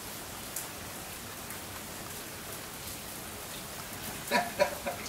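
Steady rain falling, a soft even hiss of drops on the ground and surfaces.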